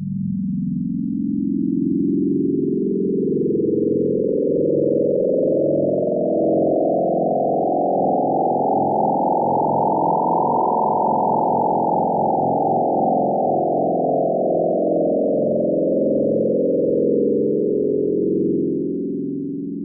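Synthesized sweep flutter sound effect: a dense, rapidly fluttering tone that climbs slowly to a peak about halfway through, then sweeps back down.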